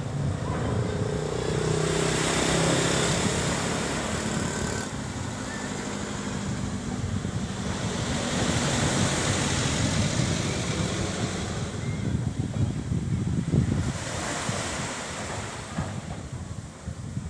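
Small waves breaking and washing up on a sandy beach, the surf swelling and fading every few seconds.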